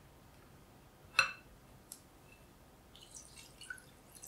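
A single sharp tap about a second in, then milk beginning to pour into thick melted chocolate in a glass bowl, a soft splashing that grows louder near the end.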